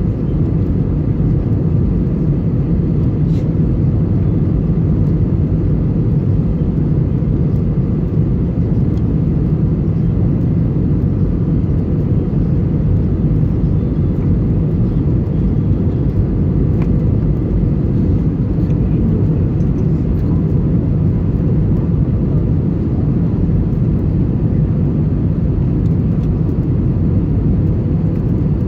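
Steady low rumble of an airliner's engines and airflow, heard from inside the cabin of a Go Air Airbus A320 on the landing approach.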